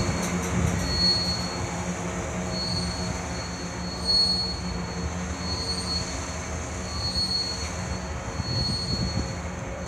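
CN freight train of covered hopper cars rolling past, its steel wheels rumbling on the rails. A high wheel squeal swells and fades about every second and a half.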